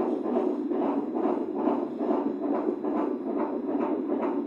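Fetal heartbeat on an ultrasound machine's Doppler audio: a fast, rhythmic whooshing pulse at about three beats a second, in the normal fetal range.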